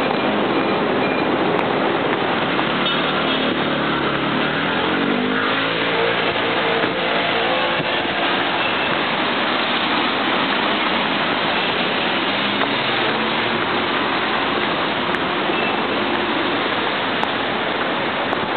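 Continuous road traffic noise from a busy urban expressway. About four seconds in, one vehicle's engine rises in pitch as it accelerates past.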